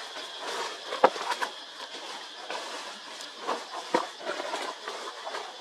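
Outdoor ambience: a steady high-pitched drone with scattered sharp clicks and rustles, the loudest clicks about a second in and again near four seconds.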